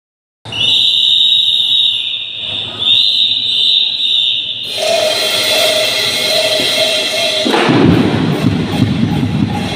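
Two long, shrill whistle blasts, then a held lower tone over noise. About three-quarters through, a drum and lyre corps strikes up with drums and cymbals.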